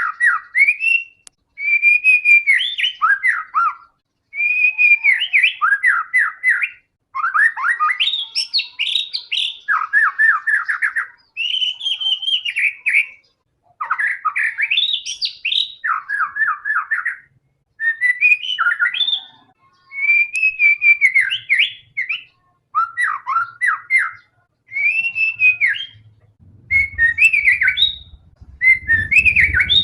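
White-rumped shama (murai batu) in full song: phrase after phrase of rapid, varied whistled notes, each phrase one to two seconds long with short pauses between. A low rumble comes in near the end.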